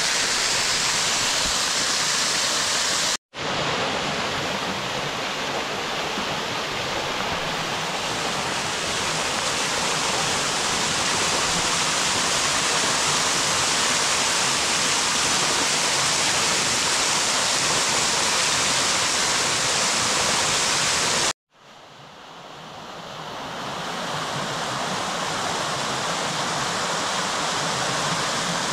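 Small mountain waterfall and cascading stream pouring over rock: a steady rush of splashing water. It drops out briefly twice, about three seconds in and again about three-quarters of the way through, and after the second break it comes back softly and swells to full level over a few seconds.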